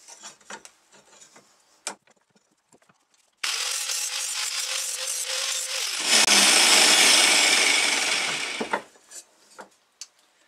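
Electric angle grinder sharpening a steel lawn mower blade: a few light clinks of the blade in the bench vise, then the grinder's motor starts with a steady whine about three seconds in, and about halfway through the disc bites into the blade edge with a louder, hissing grind for nearly three seconds before stopping abruptly.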